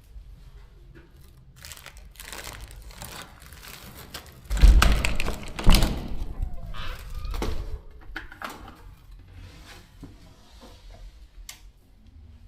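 Irregular knocks, clicks and rustling, with two heavier thumps about five and six seconds in.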